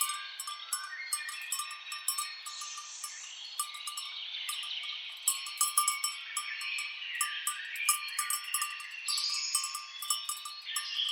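Several birds chirping and warbling over one another, with cattle bells clinking often and unevenly as the cows move.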